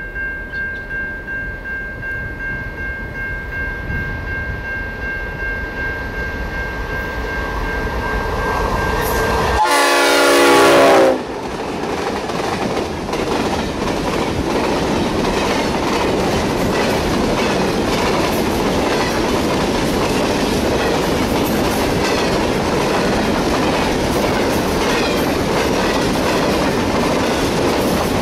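Pacific National grain train's diesel locomotives approaching, growing louder, then one horn blast of about a second and a half about ten seconds in. Grain hopper wagons then roll past with a steady clatter of wheels over the rail joints.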